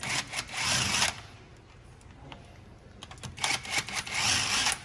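Cordless impact wrench rattling as it loosens the bolts of a rear differential cover, in two bursts: one about a second long at the start, and a longer one of about a second and a half from about three seconds in.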